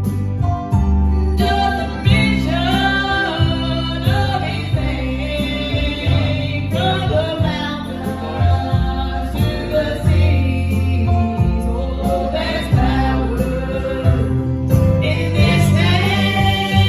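Gospel song sung by a small group of voices over instrumental accompaniment with a steady bass line.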